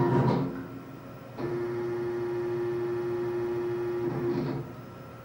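Stepper motors of a 1325 CNC router whining steadily as the machine homes, slowly jogging an axis toward its limit switch. The whine drops out near the start, resumes about a second and a half in, and stops again about four and a half seconds in.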